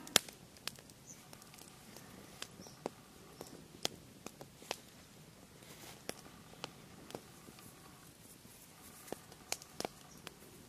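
Hands working a small carved wooden stopper and paracord close by: scattered, irregular sharp clicks and taps. The loudest is right at the start, and a few come close together near the end.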